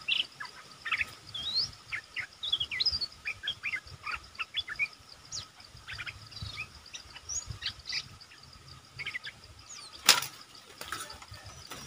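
Bulbuls calling in a quick series of short chirps and whistled notes around a caged decoy. A single sharp knock comes about ten seconds in.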